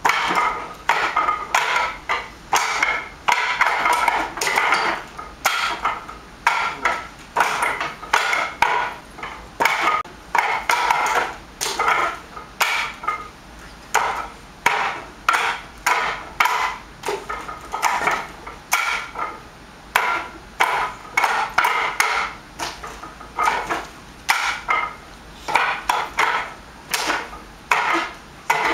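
Wing Chun wooden dummy (mook yan jong) struck by forearms and palms: a fast, uneven run of sharp wooden knocks in quick clusters, several a second.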